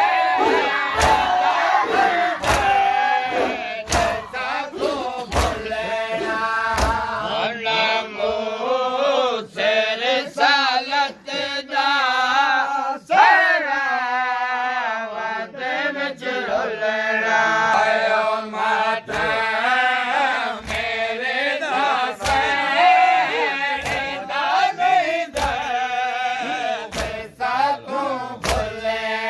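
Shia matam: a group of mourners chanting a noha while striking their chests with their hands, sharp slaps mostly about once a second under the singing voices.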